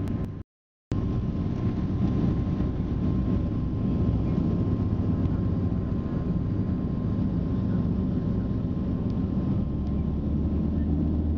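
Two Shvetsov ASh-62IR nine-cylinder air-cooled radial engines and their propellers drone steadily, heard from inside the Lisunov Li-2's cabin. The sound cuts out briefly about half a second in.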